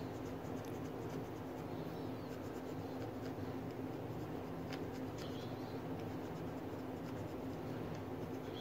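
Hand scraper scratching the high spots off a babbitt crankshaft bearing in quick, light strokes, shaving off small chips to even out crank-to-bearing contact. A low steady hum runs underneath.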